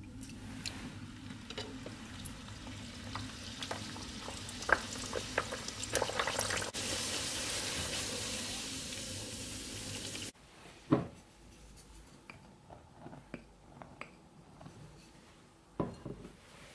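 Puri dough frying in hot oil in a pan: a sizzle full of crackles and pops that grows louder and is strongest while the bread is pressed under the spatula, then cuts off abruptly. After that come a few light knocks and taps of glassware and a spoon at a mixing bowl of flour.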